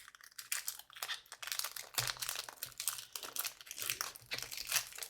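Crinkling and crackling of a foil trading-card pack wrapper being handled and opened: a quick, irregular run of crackles.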